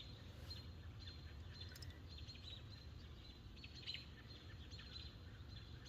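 Faint, high bird chirps, short and scattered, over a low steady hum.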